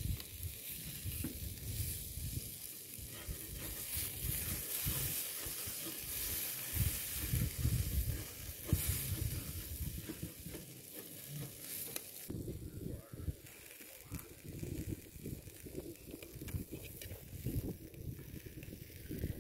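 Food sizzling in a frying pan on a portable gas camping stove, the hiss easing about twelve seconds in, over an uneven low rumble.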